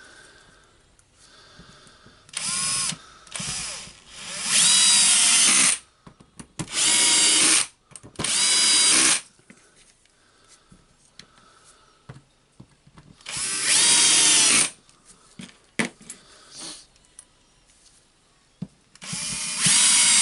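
Cordless electric screwdriver running in several short bursts, its motor whine rising in pitch as it spins up on each, driving screws into a drill's housing. Small clicks fall between the bursts.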